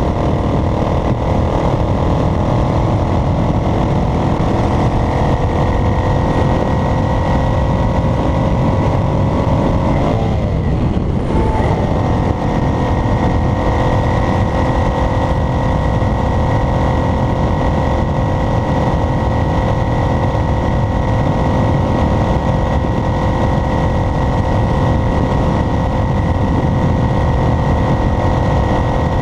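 Motor vehicle engine running at road speed with heavy road rumble. The engine note creeps slowly upward, breaks and dips briefly about ten seconds in, then holds steady, with a thin high whine running throughout.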